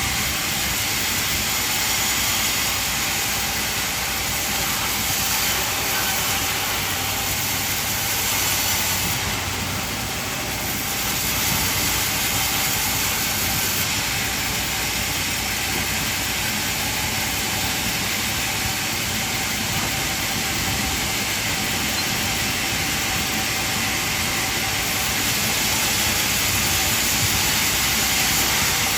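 Band sawmill running steadily: a continuous machine noise with a strong hiss.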